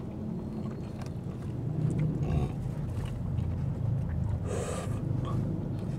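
Steady low hum inside a car's cabin, with faint clicks of hands and food on plates and a brief noisy rustle about four and a half seconds in.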